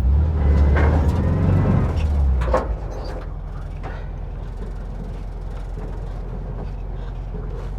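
Air-cooled flat-four engine of a split-window VW bus pulling hard for about two and a half seconds, with a couple of clunks, then settling to a steady low idle while the bus works free of deep ruts.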